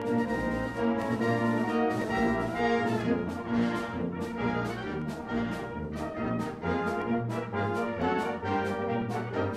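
A British-style brass band of cornets, horns, euphoniums, trombones and tubas playing a concert piece together, with percussion strikes marking a quick, regular beat from about three seconds in.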